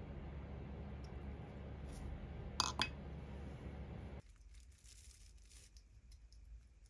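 Two sharp clinks of small hard objects about two and a half seconds in, over a steady low hum that cuts off suddenly just after four seconds; faint small clicks and scrapes follow.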